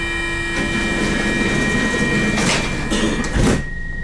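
Subway train's sliding doors closing: a steady electronic tone with several pitches sounds while they move, then the doors shut with a loud thud about three and a half seconds in.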